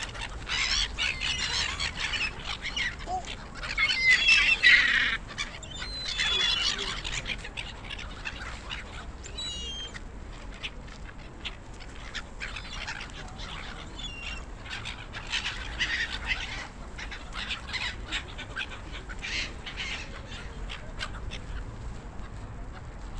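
A flock of gulls calling, many short cries overlapping. The calling is densest and loudest around four to five seconds in, then thins to scattered calls.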